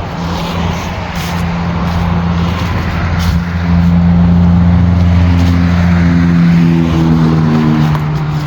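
Road traffic passing on a busy street: motor vehicles driving by with a steady engine hum and tyre noise. It swells louder about three and a half seconds in and eases off near the end.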